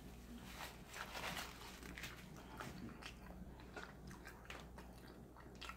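A person chewing food close to the microphone: quiet, irregular mouth clicks and smacks.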